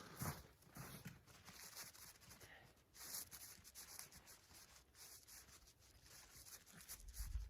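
Faint rustling and rubbing of tent fabric being handled, with a brief brighter swish about three seconds in.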